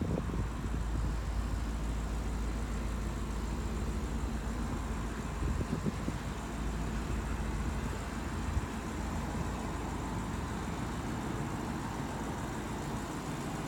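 Audi RS4's 4.2-litre V8 idling steadily with a low, even rumble.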